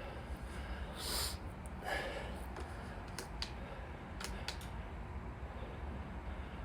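Steady low hum of a running fan, with two short breaths about one and two seconds in and a few sharp clicks a little later.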